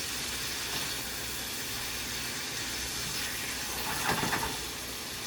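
Steady sizzling hiss of food frying in oil in a pot on the stove.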